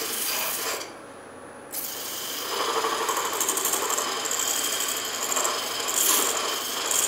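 A curved wooden sanding block pressed against a wooden sphere spinning on a wood lathe, giving a steady, scratchy rubbing hiss. The rubbing drops away for about a second near the start, then comes back louder and rises and falls as the block is worked over the sphere.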